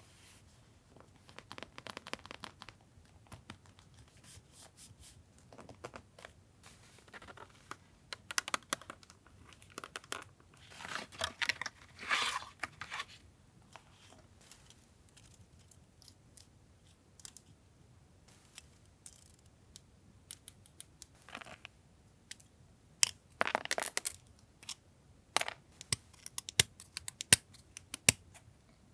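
Paper and stickers being handled for a journal collage: scattered rustling and crinkling, with a longer stretch of paper noise around the middle and a run of sharp small clicks and taps near the end.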